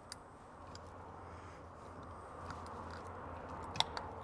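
Faint clicks and light scraping of hand tools and small metal parts on an aluminium Carter AFB four-barrel carburetor being taken apart, with the sharpest click near the end.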